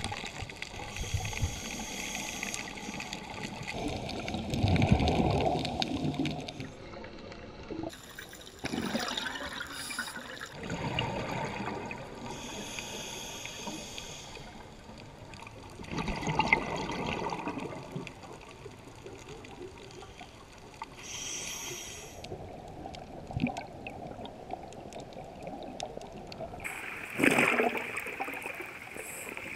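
Scuba regulator breathing heard underwater: a hiss on each inhale and a rush of exhaled bubbles every few seconds.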